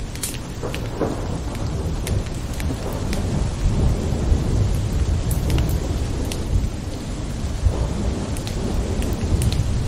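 Steady rain with a low rolling rumble of thunder that swells through the middle, and scattered sharp drop hits.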